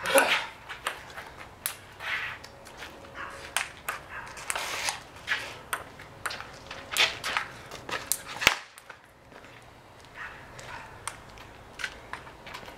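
Ping-pong ball clicking off paddles, the table top and the concrete driveway in a fast, irregular rally, with a few sharp clicks every second or so and one especially sharp crack about eight and a half seconds in.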